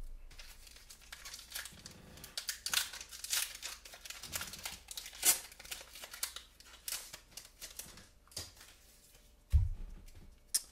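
A foil booster-pack wrapper being torn open and crinkled by hand: a long run of irregular crackles and rips. There is a dull low thump near the end.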